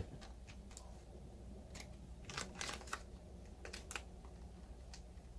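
Faint, scattered clicks and light taps of paper and cardstock being handled as a business card is slipped into the slot of a cardstock door hanger, over a steady low hum.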